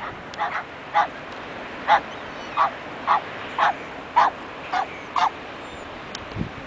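A dog barking repeatedly, about ten short barks roughly two a second, over a steady background rush.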